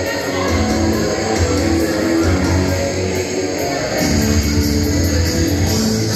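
Music with strummed guitar over a steady bass beat.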